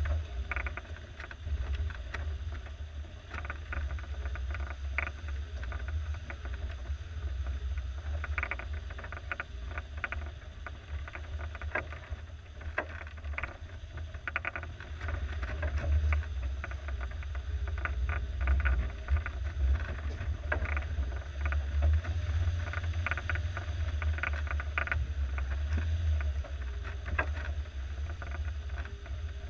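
Suzuki SJ413's 1.3-litre four-cylinder engine running with a low, steady rumble as the jeep crawls over a rough, muddy trail, with frequent short knocks and rattles from the body and suspension over the bumps.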